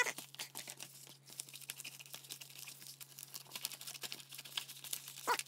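Scissors cutting the end of a bubble-lined padded mailer, with the plastic crinkling as it is handled: faint, irregular snips and crackles, a louder one near the end.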